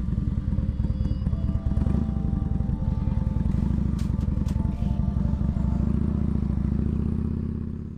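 Motorcycle engine running with a deep, rapidly pulsing rumble that fades away and stops at the end.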